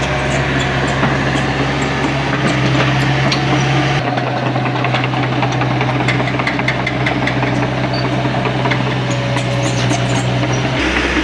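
Excavator's diesel engine running steadily with a low hum. Its lowest rumble drops away about four seconds in and returns near the end, and scattered light metallic clicks are heard over it.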